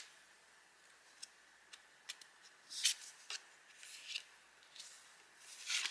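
Tarot cards being slid off the top of the decks and laid down: a series of faint, brief papery swishes and light taps, the strongest about three seconds in and near the end.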